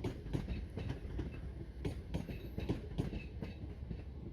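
Northern Class 323 electric multiple unit pulling into the platform: a low rumble with irregular clicking of its wheels over the rail joints and points.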